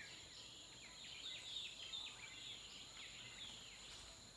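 Small birds chirping in short, quick falling notes, a few each second, over a steady high-pitched insect drone.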